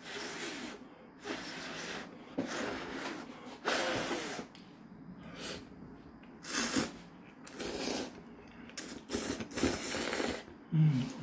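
A man slurping ramen noodles off chopsticks: a string of about ten hissing slurps, some long and some short, with brief pauses between.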